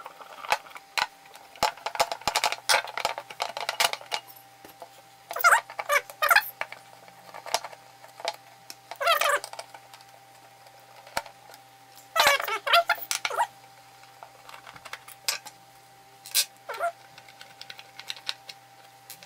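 Sped-up clicking and clattering of a screwdriver and small screws as the metal case of a MOTU UltraLite audio interface is taken apart: quick clusters of ticks and rattles, broken by a few short, loud warbling squeaks.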